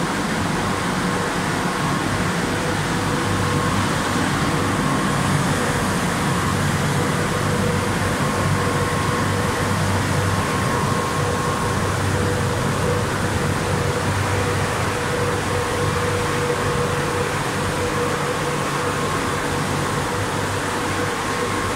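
Drying blowers of a Rohé California C45 E2 rollover car wash running. A steady rush of air with a faint, constant mid-pitched hum.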